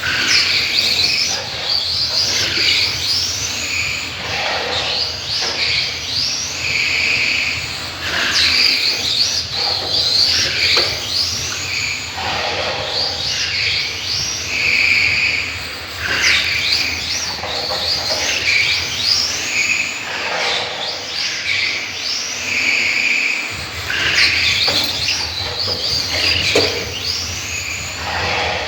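Electric RC car's 13.5-turn brushless motor whining, its pitch sweeping up and falling away again and again as the car speeds up and slows.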